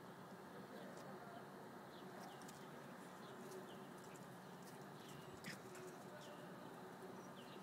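Near silence with faint, short bird chirps repeating about once a second, and a single soft click midway.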